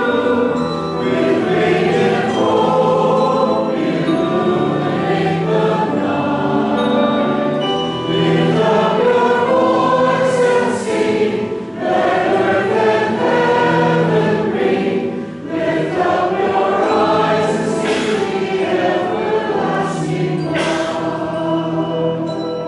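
Mixed church choir singing a hymn in sustained phrases, with piano accompaniment and short breaks between phrases.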